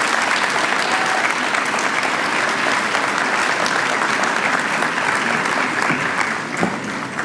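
Audience applauding steadily in a hall, the clapping thinning out near the end.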